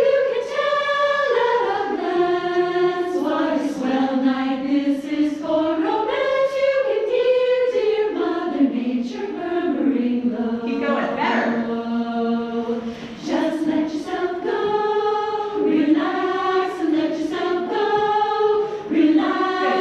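A choir singing a melody in held, flowing notes.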